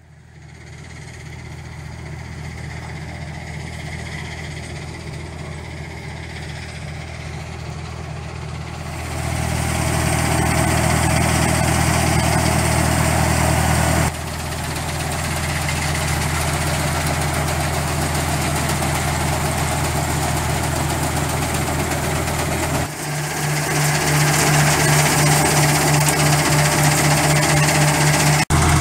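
Olive harvesting machinery, a Volentieri-Pellenc 8050 harvester worked with a Massey Ferguson 3660 GE tractor, running steadily as it passes along the olive hedgerow. A steady engine drone sits under a wide rushing noise. The sound fades in at the start and grows louder about nine seconds in, with sudden shifts in tone around the middle and again near the end.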